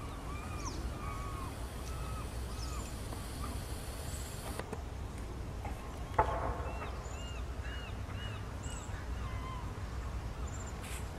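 Birds chirping outdoors, short arched notes repeated over and over, above a steady low rumble. About six seconds in, one loud short call stands out.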